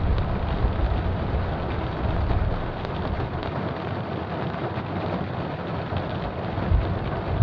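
Steady rain with thunder: a low rumble at the start fades away through the middle, and a fresh, louder rumble begins near the end.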